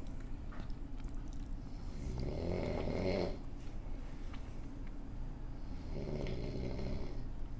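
Loud snoring, one long snore about two seconds in and another about six seconds in, the snores coming roughly every four seconds.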